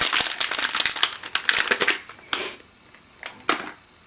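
Packaging crinkling and crackling as it is handled: a rapid, dense crackle for about two seconds, then two short rustles.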